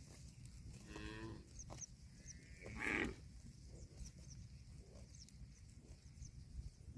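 Cow mooing: a short moo that falls in pitch about a second in, then a louder, rougher moo about three seconds in.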